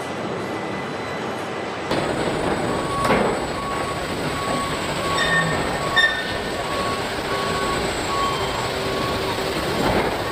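Robotic car-body assembly line running, a steady hum and clatter of machinery. Through the middle a short electronic beep repeats about twice a second, and there is a swelling rush of noise about three seconds in and again near the end.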